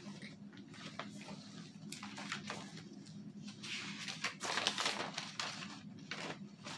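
Paper pages of a spiral-bound notebook rustling and flipping as it is opened and leafed through, in short irregular rustles with a denser burst of page-turning about four to five seconds in.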